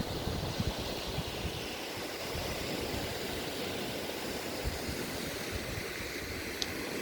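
Sea waves washing onto the beach, a steady rushing noise, with wind buffeting the microphone in low rumbles. A single brief click sounds about two-thirds of the way through.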